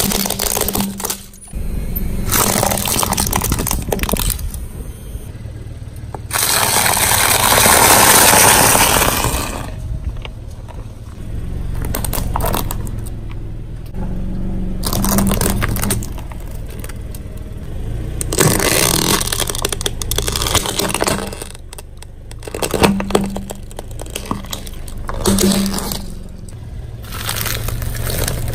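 A car tyre rolling over and crushing plastic objects one after another, with cracking, crunching and scraping against the pavement. The sound comes in several separate bursts, the longest and loudest about six to nine seconds in.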